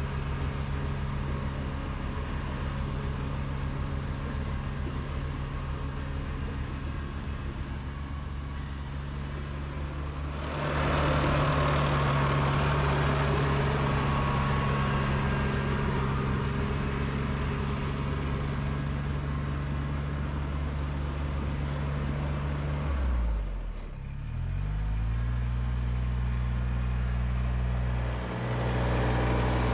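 Kubota BX2230D compact tractor's three-cylinder diesel running steadily. About a third of the way in it gets louder and noisier. Around three quarters in its pitch sags briefly and climbs back.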